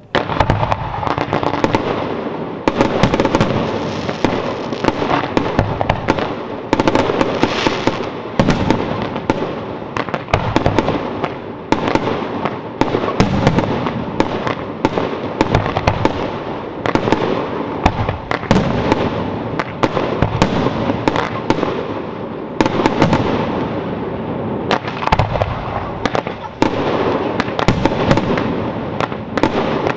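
Fireworks display: a dense barrage of aerial bursts, many sharp bangs a second overlapping, with echoing rumble between them, starting abruptly and keeping up without a break.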